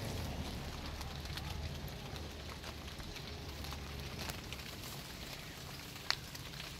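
Light rain pattering, with scattered drops ticking, and a short high squeak about six seconds in.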